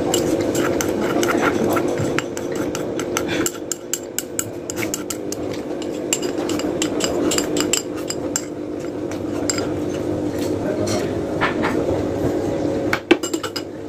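Eating at a meal: cutlery clicking and scraping against a plate in many small, irregular clicks, with a few sharper knocks near the end, over a steady hum.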